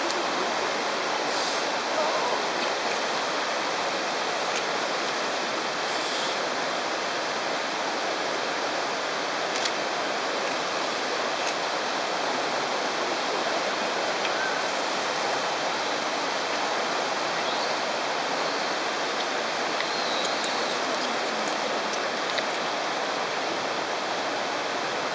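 Steady rush of flowing water at a hot spring, an even, unbroken hiss, with a few faint short ticks.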